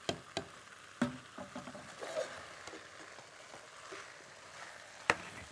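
A metal spoon clinks and scrapes against a cooking pot while stirring basmati rice and chicken being sautéed, with a few sharp knocks in the first second and one loud knock near the end, over a faint sizzle.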